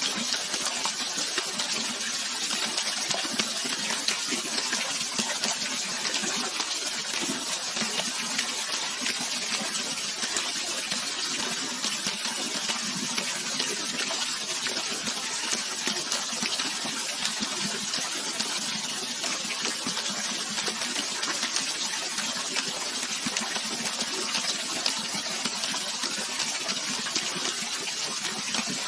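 Flowing water rushing steadily, a continuous bright hiss of splashing water with no let-up.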